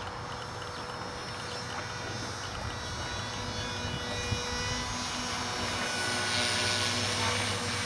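Align T-Rex 450 Pro electric RC helicopter in flight: a steady whine from its motor and rotor, growing louder from about three seconds in.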